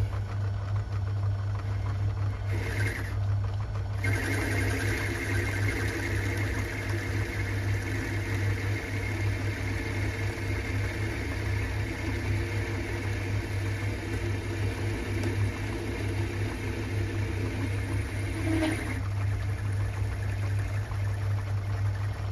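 Myford ML7 lathe running with a steady hum while a turning tool cuts along a quarter-inch hex bar. The cutting noise, higher than the hum, comes in briefly about two and a half seconds in, then runs steadily from about four seconds in until a few seconds before the end, when the tool comes off the cut.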